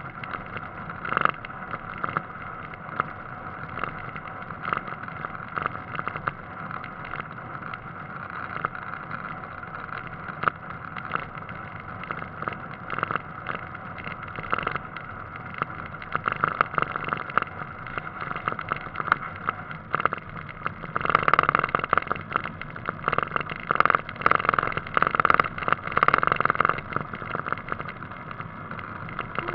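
A car driving along a road, heard as muffled wind and road noise through a camera mounted on the outside of its front wing, with frequent small knocks and rattles. The noise gets louder and rougher for several seconds about two-thirds of the way through.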